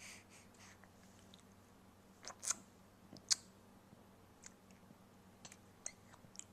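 Faint, scattered wet mouth clicks and smacks from a baby's lips and tongue, about a dozen short ticks spread out, the loudest a quick cluster of three a little past two seconds in.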